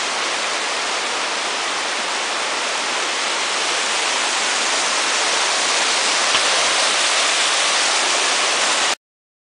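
Mountain stream cascading down bare rock slabs: a steady rushing hiss that grows a little louder about four seconds in and cuts off suddenly near the end.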